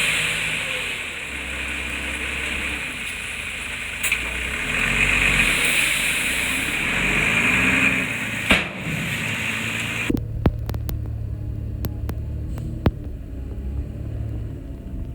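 Heavy-equipment diesel engine running, its pitch rising and falling as it works. About ten seconds in, the sound changes abruptly to a lower, steadier rumble with a few sharp clicks.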